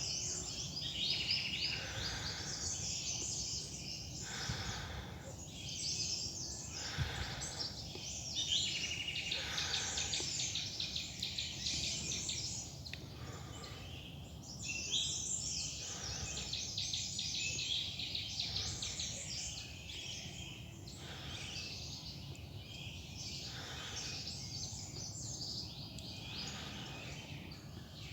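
Many forest birds chirping and singing together in a dense, continuous chorus. Beneath them, a soft scuff comes every two to three seconds: slow footsteps on a loose-soil trail.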